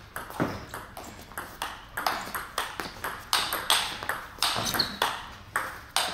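Table tennis rally: the ball clicking sharply off the bats and the table, about three hits a second, in a steady back-and-forth rhythm.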